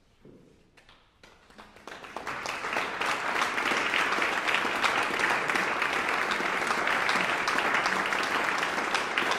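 Audience applause breaking out after a silence, building over a couple of seconds into steady, dense clapping.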